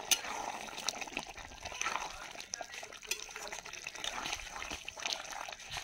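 A steel ladle stirring a thick, simmering curry in a metal pan: wet squelching and sloshing of the gravy, with short clicks and scrapes of the ladle against the pan now and then.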